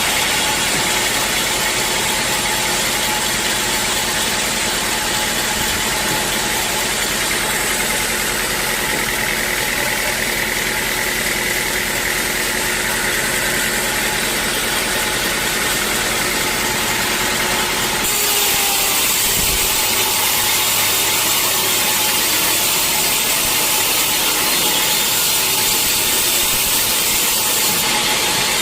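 Sawmill machinery running steadily, a continuous mechanical hum with a whine and hiss. About two-thirds of the way through the sound shifts: less low hum and more high hiss.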